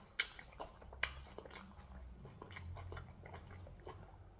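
Faint sounds of a person chewing food: irregular mouth clicks and smacks.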